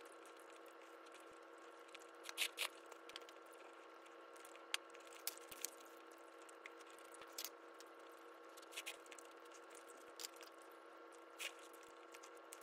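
Soft eating sounds: scattered crunches and light clicks as honey-glazed fried chicken is picked up with wooden chopsticks and chewed, over a steady faint hum.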